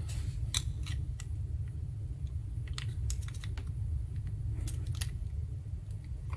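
Irregular small metallic clicks and scrapes of a hand tool working the locking tab on a vintage radio volume-control potentiometer. A steady low hum runs underneath.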